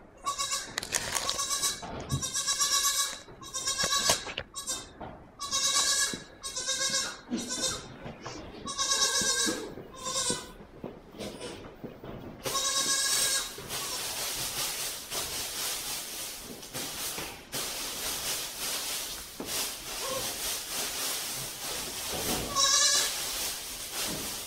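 A young goat kid bleating again and again in high calls for the first ten seconds or so, then twice more later. From about halfway on there is a steady rustling of loose straw being forked and shaken out into a pen.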